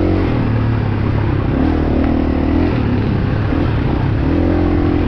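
Dirt bike engine revving up and down as the throttle is worked through tight singletrack, over wind and trail noise.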